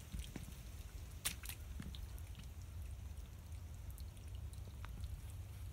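Steady low wind rumble on the microphone, with faint scattered clicks and taps and two sharper taps a little over a second in.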